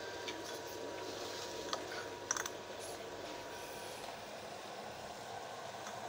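Electric nut-grinding mill running steadily as it grinds peanuts, sesame and flaxseed into a paste, with a few sharp clicks about two seconds in.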